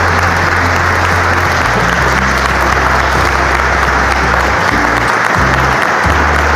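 A congregation applauding steadily, many people clapping at once, with music playing underneath in low sustained notes.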